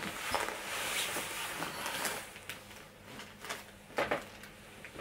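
Rustling of a quilted puffer coat and a canvas tote bag holding plastic shopping bags as they are handled, with a couple of sharp knocks about four seconds in.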